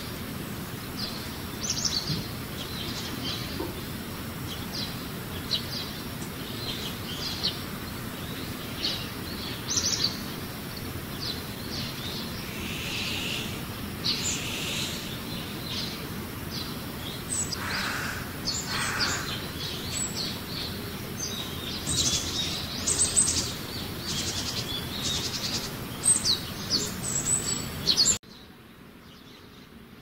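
Wild birds chirping and calling: many short, high chirps, some overlapping, over a steady background hiss, with two lower calls about two-thirds of the way through. The background noise drops suddenly near the end.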